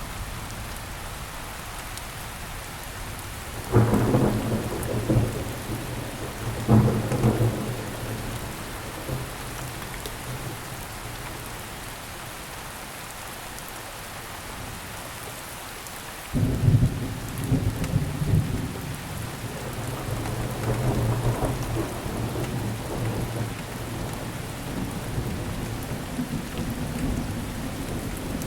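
Steady rainfall with thunder. Two sudden thunderclaps come about 4 and 7 seconds in, then a longer thunder rumble starts just past the middle and continues under the rain.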